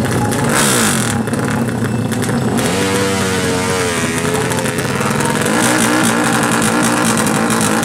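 Single-cylinder four-stroke drag-bike engine, a Yamaha Jupiter MX bored out to 350 cc with a carburettor, revving up and down repeatedly while the bike is held stationary on the start line.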